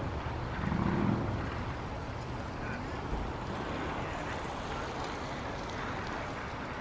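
Steady outdoor wind noise on the microphone, swelling briefly about a second in.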